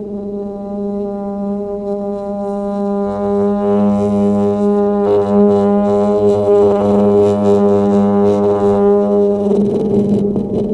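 Rubber ball on a light-mounting tool rubbed across a cotton silo's corrugated metal wall, setting the silo ringing with one long steady tone. The tone swells louder about three seconds in and breaks off about a second before the end.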